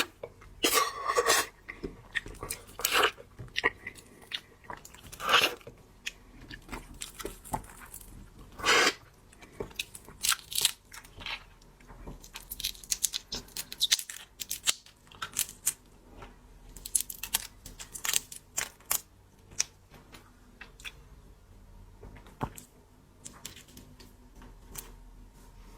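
Close-up crunching and chewing as a person eats seafood, with many sharp irregular crackles. They are loud and frequent through the first half and grow sparser and fainter toward the end.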